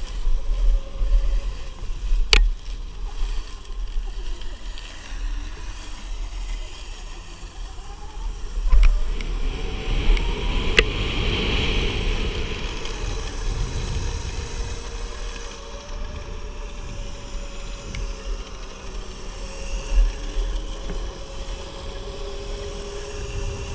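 2020 Sur-Ron electric motorbike riding along: wind buffeting the GoPro microphone and tyre rumble, with a faint electric motor whine rising and falling. A few sharp clicks, and the noise swells for a few seconds in the middle.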